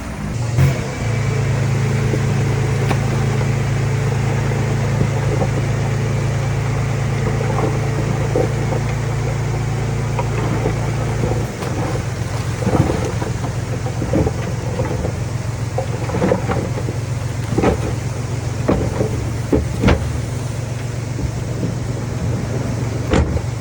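Heavy earthmoving machine's diesel engine running steadily under load, with scattered metallic clanks and knocks in the second half.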